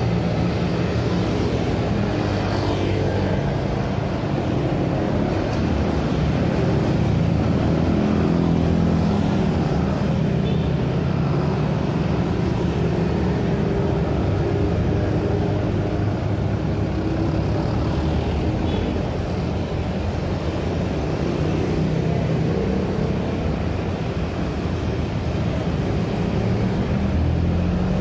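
Busy city-street traffic passing close by: a continuous stream of small motor scooters and cars, with engine hum and tyre noise and no break.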